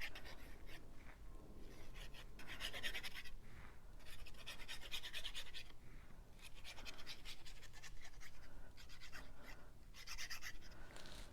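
Scratchy rubbing of paper on card stock, in five or six strokes of about a second each with short pauses between.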